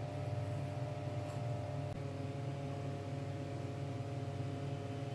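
A steady motor hum: a low drone with a few fixed higher tones, unchanging throughout.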